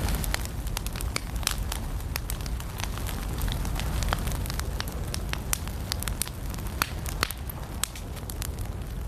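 Firewood burning in a fireplace, crackling with many irregular sharp pops over a low steady rumble of the flames.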